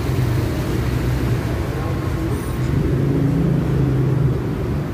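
Street traffic noise: a steady low rumble of vehicle engines.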